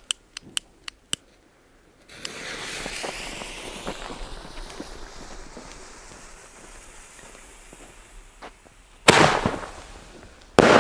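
A few sharp clicks as the firework is lit, then a long fizzing hiss as the fuse and sparks of a 25 g Panda Bombenrohr tube burn for several seconds. Near the end come two loud bangs about a second and a half apart as the tube fires its shell into the sky.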